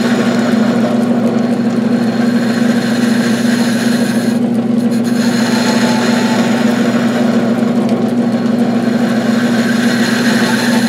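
South Bend 9-inch lathe running, a steady hum from its motor and belt drive, with the hiss of a tool cutting a steel part as it is turned down to size. The higher hiss fades for about a second near the middle.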